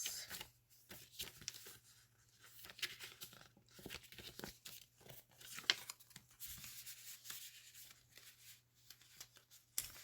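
Paper rustling and crinkling as the pages, tags and tucked-in booklets of a handmade paper junk journal are handled and turned, with irregular soft scrapes and clicks.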